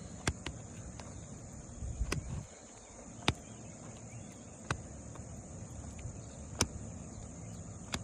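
Steady high-pitched chirring of insects, crickets or similar, with about six short sharp clicks scattered through it.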